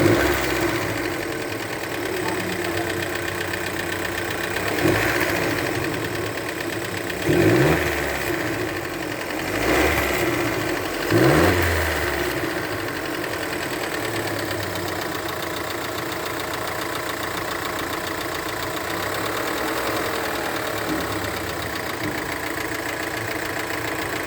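Fiat Pulse's 1.0 turbo three-cylinder (T200) engine idling, revved briefly four times in the first half and then settling back to a steady idle. It is running with the engine noise under diagnosis, which the uploader tags as a knocking.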